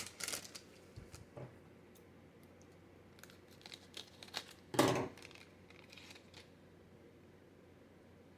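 Wrapper of a trading card booster pack crinkling and tearing as it is opened, with the cards handled in short rustles and clicks. A louder rustle comes about five seconds in, then it falls quiet.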